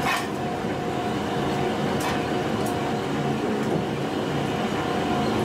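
Steady machinery drone from the forge yard, with a few sharp metallic clinks from tongs and bars handling the red-hot forging.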